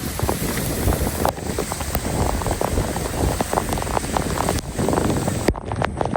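Heavy rain falling, with many drops pattering sharply close to the microphone. The sound changes abruptly about a second in and again near the end.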